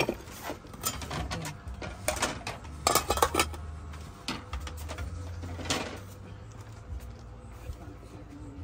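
Cutlery and dishes clinking now and then during a meal, several clinks close together in the middle and single ones later, over a low steady hum.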